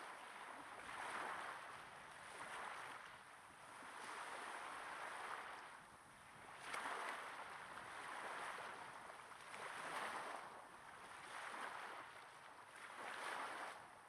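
Small waves gently breaking on a sandy beach, recorded close up: a soft wash of surf that swells and fades about every one and a half seconds.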